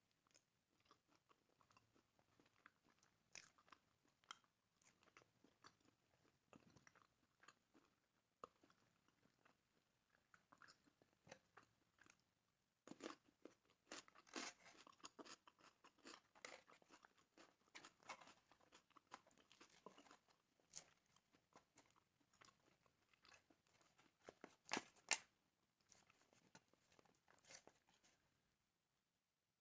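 Faint close-up eating sounds: a person biting and chewing grilled chicken, with soft crunching, smacking and fingers tearing the meat. The clicks come thickest through the middle, with one sharper crackle near the end.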